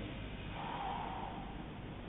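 Snoring: one noisy, breathy snore swells about half a second in and fades after about a second, over a low steady hum.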